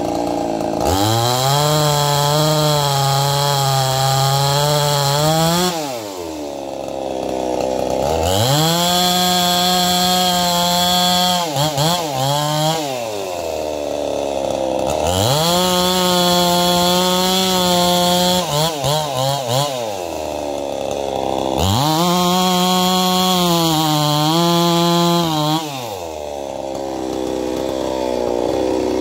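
Two-stroke Stihl-clone chainsaw revved up to full throttle four times, each held for about four seconds before dropping back to idle. There are a few quick throttle flutters in the middle of the second and third runs.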